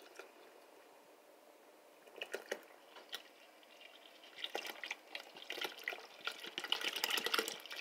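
Milk poured in a stream from a jug into a large pot of rice pudding, splashing faintly. It is almost silent at first, and the splashing grows busier in the last few seconds.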